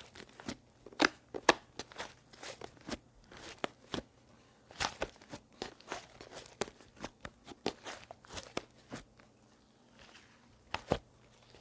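Slime being squished and pressed by hand, giving irregular sharp crackling clicks and pops, with a short lull near the end before two more pops.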